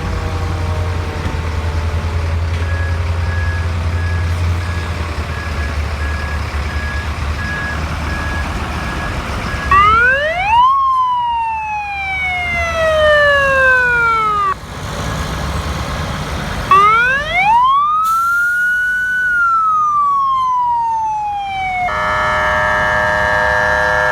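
Ambulance siren wailing. A tone winds slowly down over a low engine rumble, then two rising-and-falling wail cycles about seven seconds apart. Near the end comes a steady, many-toned blast.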